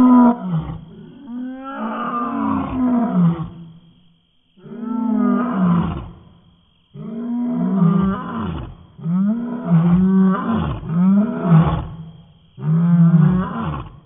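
Two young male lions roaring territorially: a run of deep calls separated by short pauses, the first ones about two seconds long and the later ones shorter, about a second each.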